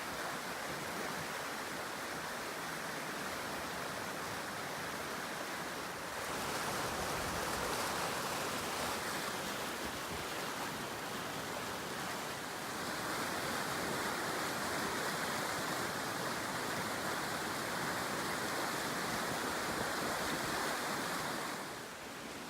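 Steady rush of river water. It steps up in level about six seconds in and again a little past halfway, then drops off just before the end.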